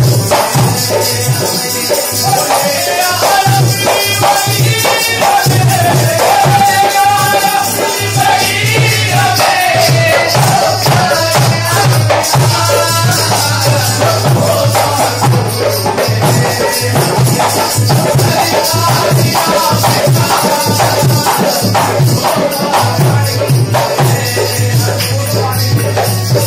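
Live Indian folk music from harmonium and dholak drums, with a steady drum beat, a sung melody and jingling percussion.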